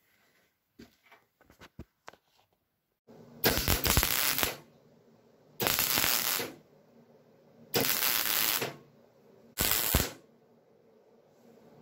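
Wire-feed (MIG) welder crackling in four short bursts of about a second each, starting about three seconds in, as holes in the tractor's sheet-steel hood are stitch-welded shut. A few faint taps come before the welding.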